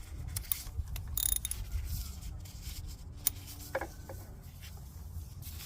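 Ratchet wrench with an oil filter cap socket clicking and knocking as a new oil filter is gently snugged down by hand, in scattered sharp clicks.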